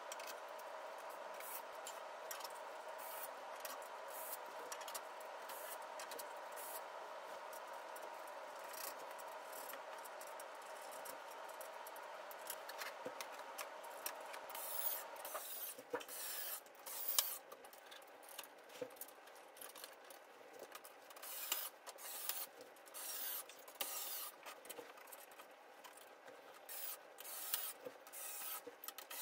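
Hand assembly of a metal-and-wood ladder bookshelf: metal frame rails, cross brace and screws rubbing and scraping, with light clicks and knocks that come more sparsely in the second half. A faint steady hum sits underneath and stops about halfway through.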